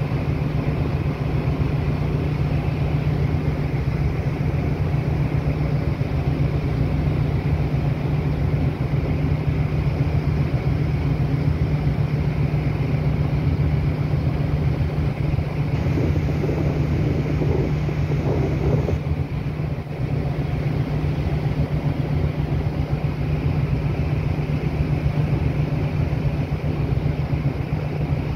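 Steady low drone of a ship's engines with rushing wind and sea noise, heard on board. About sixteen seconds in, a few seconds of extra rushing noise rise over the drone.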